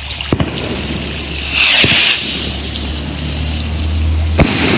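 Firework rocket launching with a short hiss about a second and a half in, then a single sharp bang near the end as it bursts overhead, over a steady low rumble.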